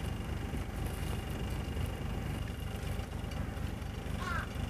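A steady low rumble, with a bird calling briefly near the end in a few quick, pitched chirps.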